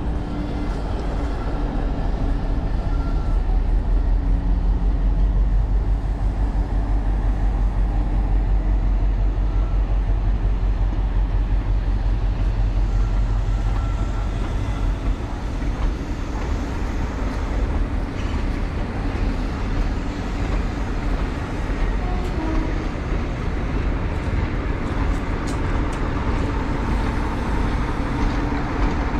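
A diesel-hauled passenger train passing. The Class 60 locomotive's diesel engine drones low and strong as it pulls away, then the coaches roll by with a steady rumble of wheels on rail. Near the end the diesel locomotive on the rear of the train draws near.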